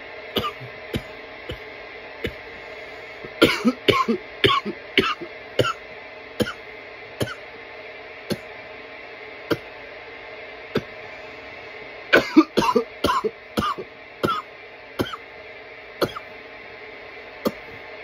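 A man coughing in fits from bong smoke: a rapid cluster of coughs about three and a half seconds in and another about twelve seconds in, with single coughs roughly a second apart between and after them, over a steady background hum.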